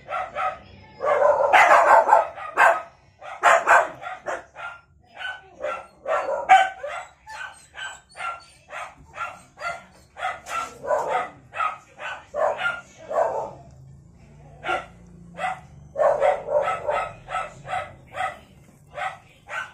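Newborn kittens mewing: a steady run of short, high cries, about two or three a second, crowding together and louder about a second in and again near the end.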